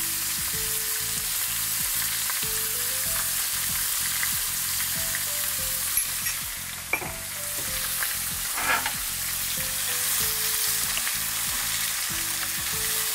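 Raw goat meat cubes sizzling as they fry in hot oil in a nonstick pan, stirred with a wooden spoon, with a few short scrapes of the spoon against the pan.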